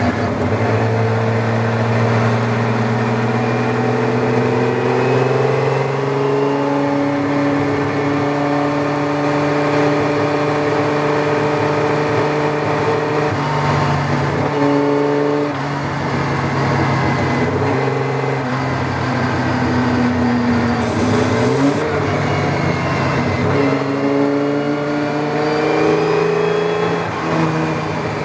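Jaguar XK straight-six of a Tojeiro-Jaguar sports racer heard from the open cockpit at racing speed. The engine note climbs, drops at each gear change and climbs again several times, with a lift and re-acceleration past the middle. Wind rush runs under it throughout.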